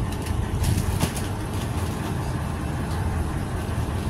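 Ice cream truck's engine idling, a steady low rumble, with a few faint clicks about a second in.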